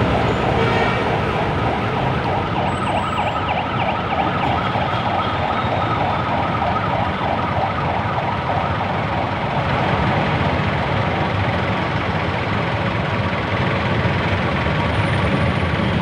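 Dense street traffic: jeepney, bus and motorcycle engines running steadily close by, with a fast-pulsing tone over the first half or so.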